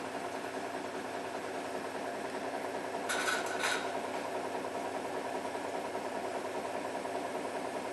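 City bus engine idling steadily while stopped, heard from inside the bus. About three seconds in, a short burst of hiss comes twice in quick succession.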